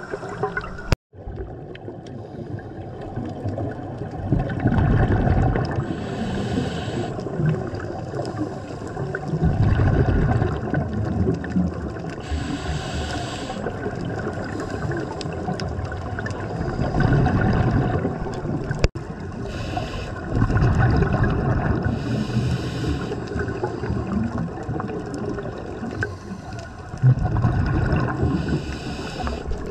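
Scuba diver breathing through a regulator underwater, heard through the camera housing. A low bubbling rumble on each exhale alternates with a hissing inhale, a breath every several seconds.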